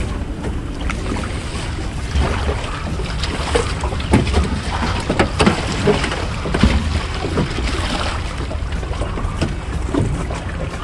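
Wind buffeting the microphone, with scattered knocks and clatter from a small aluminum jon boat and the gear in it as it is handled.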